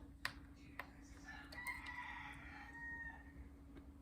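A rooster crowing faintly in the distance, one drawn-out crow lasting about two seconds. A couple of light clicks come just before it, from plastic parts of a toy being handled.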